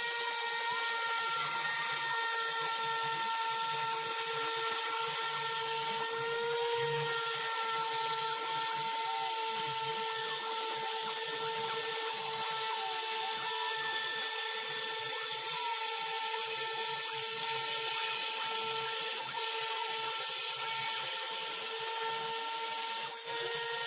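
A hand-held rotary tool (бормашинка) serving as the spindle of a homemade CNC router, running with a steady high whine while its end mill cuts into a wooden block.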